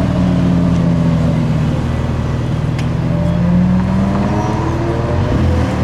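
Ferrari F12 Berlinetta's V12 engine pulling away: a steady engine note at first, then rising in pitch as it accelerates through the second half, with a brief dip near the end.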